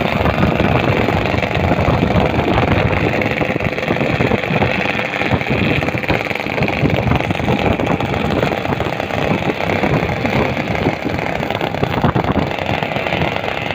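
Motorcycle engines running steadily while riding, heard from on a moving motorcycle, mixed with road and wind noise.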